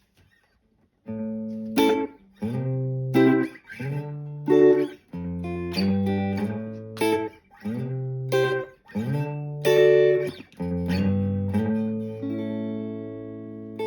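Electric guitar played through an MXR M169 Carbon Copy analog delay pedal. Chords are struck in a steady repeating pattern, about one every two-thirds of a second, starting about a second in. It ends on a held chord left ringing.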